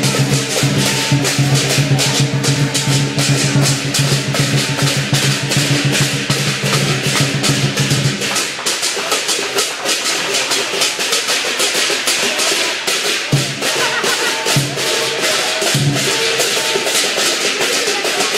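A long firecracker chain going off in a rapid, unbroken string of pops and cracks. A low steady hum sits under the first half and stops about eight seconds in.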